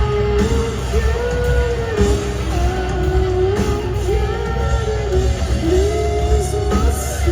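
Live rock band playing: electric guitars over a heavy low end, with a voice singing long held notes that bend and slide in pitch.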